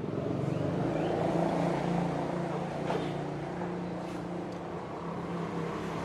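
A motor engine running steadily at an even, low pitch.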